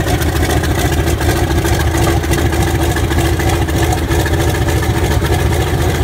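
Antonov An-2's Shvetsov ASh-62 nine-cylinder radial engine running steadily at low speed after a cold start, with a fast, even exhaust beat.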